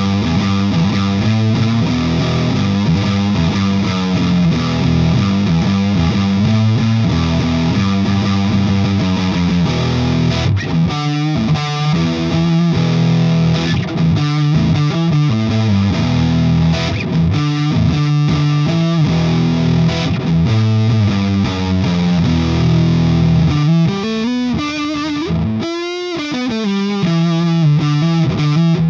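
Electric guitar played through a Frank the Anvil FX Kitsune, a hand-built Big Muff-style fuzz pedal, set with the mid switch to the left: heavy, thick fuzz riffs with long sustained notes and chords, and string bends near the end.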